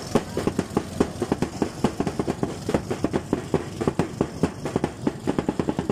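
Motorized outrigger boat engine running, a rapid uneven chugging of many knocks a second.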